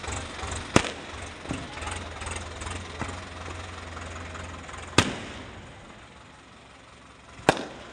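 Aerial fireworks bursting overhead: sharp bangs about a second in, about five seconds in and near the end, with smaller pops and crackling between. A steady low hum runs underneath and stops about five seconds in.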